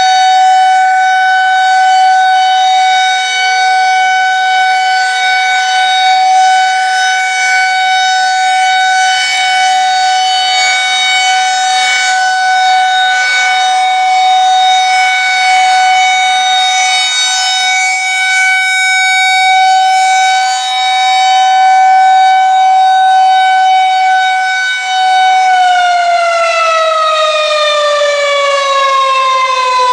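Federal Signal 2001-130 electromechanical outdoor warning siren sounding a steady, loud single tone during a test activation. Near the end its pitch begins falling as the siren winds down.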